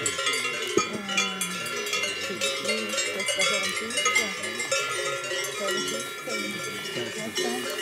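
Several cowbells clanking and ringing irregularly, many overlapping strikes, with faint voices of people underneath.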